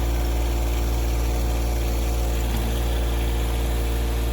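John Deere 1023E compact tractor's three-cylinder diesel engine running steadily.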